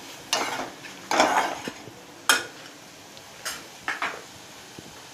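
Steel ladle stirring mushrooms in a metal kadai: a couple of scrapes across the pan, then a few sharp clinks of metal on metal.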